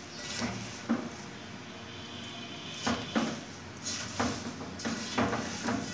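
A spatula stirring sliced raw mango and sugar in a metal pot, scraping and knocking against the pot in irregular strokes every half second to a second.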